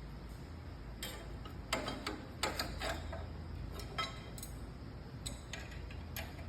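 Band saw blade guards being fitted back on: a scattered series of light clicks and knocks of parts being handled and seated, heaviest about two to three seconds in.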